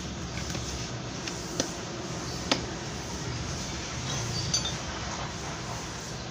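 A few light metallic clicks and clinks over a steady low hum: two single sharp clicks, then a short ringing clink of metal parts near the end, as the washing machine's parts are handled during repair.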